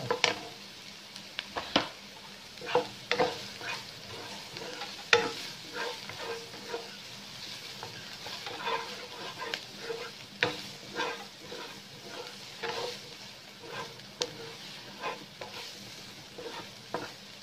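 Wooden spatula stirring and scraping chopped onion, ginger, garlic and red chilli around a stone-coated non-stick wok, in irregular strokes about once or twice a second, over a light sizzle of the vegetables frying in oil.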